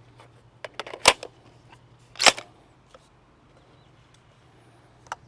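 A few short sharp clicks about a second in, then one louder sharp knock a little after two seconds, over a faint steady hum.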